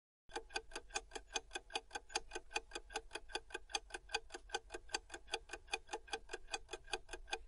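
Clock-ticking sound effect for a quiz countdown timer: quick, even ticks, several a second, starting about a quarter second in.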